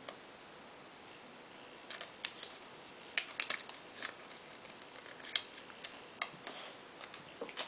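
Small plastic toy and its packaging being handled by hand, making scattered sharp clicks and crackles that begin about two seconds in.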